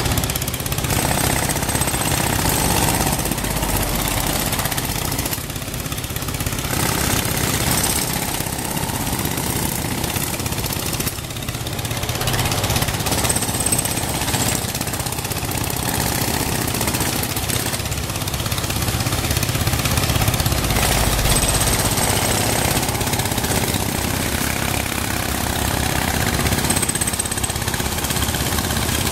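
Pneumatic breaker hammering rapidly into asphalt pavement, over the steady running of the road maintenance truck's engine.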